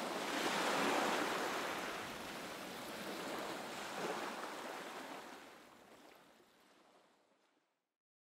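Ocean surf sound: a wash of waves that swells about a second in, then fades out to silence near the end.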